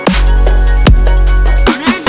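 Electronic dance music, a progressive house track with a heavy bass and sharp beat hits. Near the end the bass cuts out briefly under a quick chopped synth fill.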